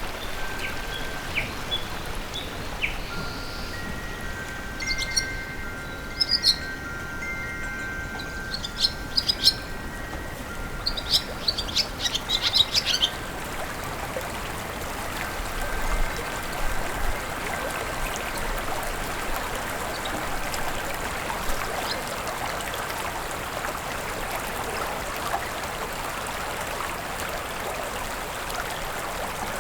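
Nature soundscape of flowing water, a steady rushing, with birds chirping in short quick clusters and soft sustained chime-like tones over it during the first half. After about halfway the birds and tones fade out, leaving the water.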